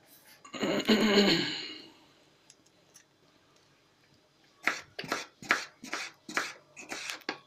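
Kitchen knife cutting through a tomato onto a plastic cutting board: a run of short sharp cuts, about three a second, over the last three seconds. A brief louder sound comes about a second in.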